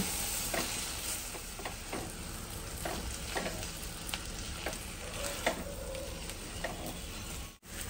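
Pink silicone spatula stirring fried okra and potatoes in a black kadai as the gram flour and spice powders are mixed through, over a soft sizzle from the hot pan. The spatula strokes scrape against the pan about every half second to a second.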